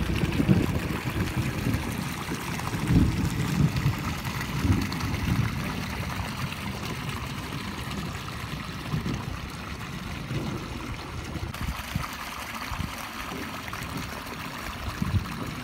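Steady rush of flowing water, with irregular low rumbles that are loudest in the first few seconds.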